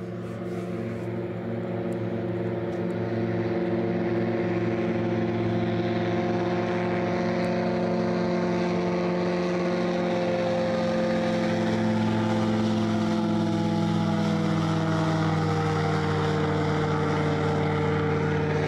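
Small propeller aircraft engine running overhead, a steady hum of several tones that grows louder and then slides down in pitch near the end as it passes. Those watching take it for a motorized hang glider.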